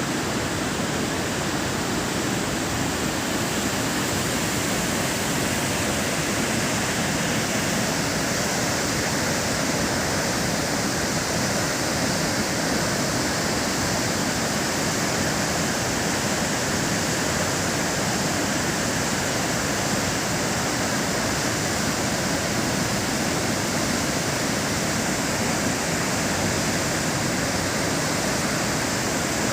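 High Force waterfall on the River Tees in full flow: a steady, unbroken rush of falling water.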